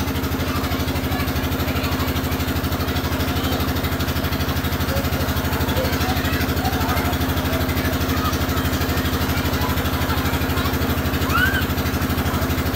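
An engine or motor running steadily with a fast, even pulse.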